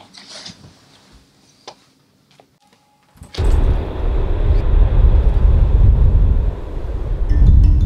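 Faint rustling of bedding, then about three seconds in a sudden loud, steady roar of a jet airliner, heavy in the low end.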